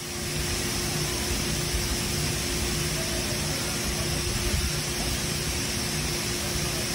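Umbrella fountain's curtain of water pouring from the rim of a large canopy onto wet stone paving: a steady, even rushing splash, with a faint steady hum underneath.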